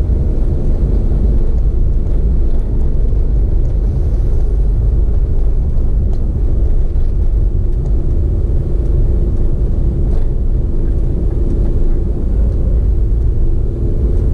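Steady low rumble of a running vehicle engine, with an even hum over it that does not change.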